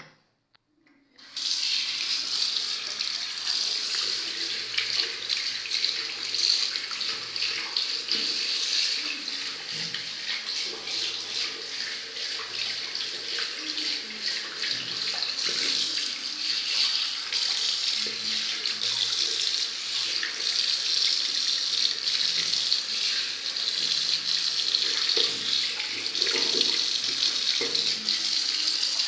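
Tap running steadily into a sink, turned on about a second in.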